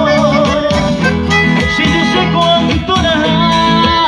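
Live band music: a sung note held with vibrato ends about half a second in, then an instrumental break continues with strummed and plucked guitars under a sustained melody line.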